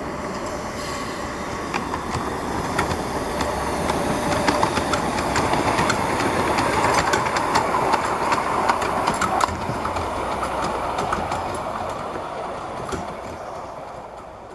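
7¼-inch gauge miniature steam locomotive and its wagons running close by: steady running noise with many sharp clicks from the wheels on the track, and steam blowing at track level. It grows louder toward the middle, then fades near the end as the train moves away.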